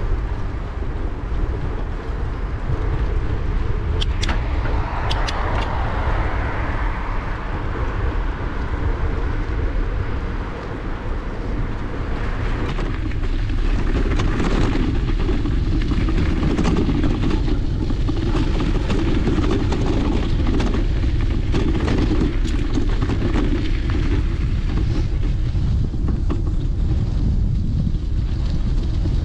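Loud, steady wind rumble on the microphone over rolling road noise, with a few sharp clicks about four to five seconds in.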